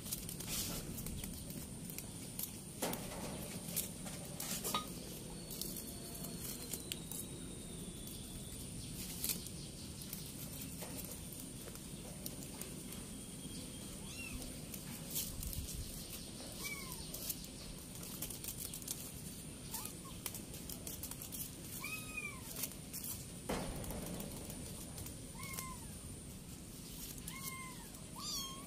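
Kittens mewing in short, high calls, several times through the second half. Scattered clicks and taps run throughout.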